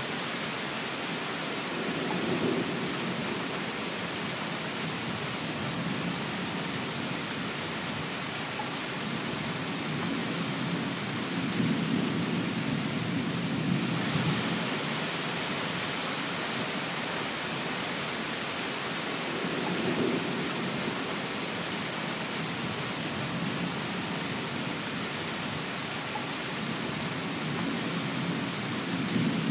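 Steady rain falling hard, an even hiss throughout. Low rumbles of thunder swell and fade several times over it, the longest about twelve seconds in.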